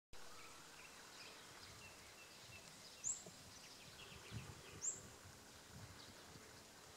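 Quiet outdoor ambience with a bird repeating a short, sharp, high chirp that drops in pitch, heard twice and again just after. Softer bird chatter runs underneath, with a few soft low thumps in the middle.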